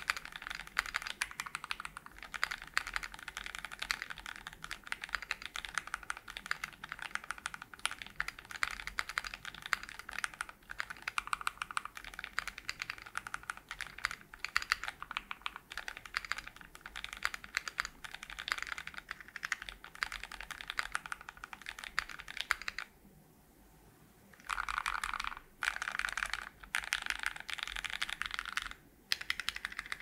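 Typing on a Keychron Q0 numpad with a steel plate, PBT doubleshot keycaps and stock Gateron G Pro Brown tactile switches: a fast, steady stream of keystroke clicks, with a pause of about a second and a half a little past two-thirds of the way through and a brief break near the end.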